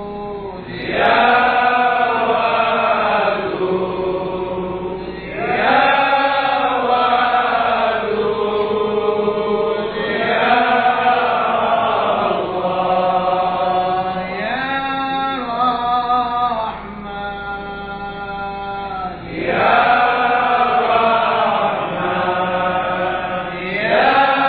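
A man's voice chanting Sufi dhikr in long melodic phrases, each a few seconds long, rising and falling in pitch, with short pauses between phrases.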